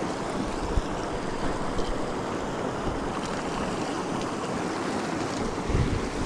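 Flowing river water, a steady rushing noise, with a few brief low buffets of wind on the microphone.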